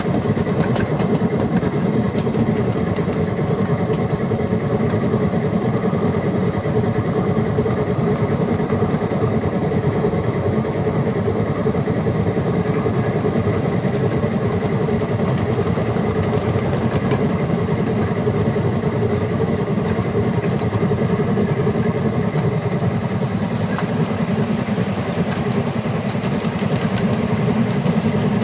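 Battery-powered ride-on miniature locomotive running steadily along the track: a continuous rolling rumble from the wheels on the rails and the electric drive, with a faint steady hum on top.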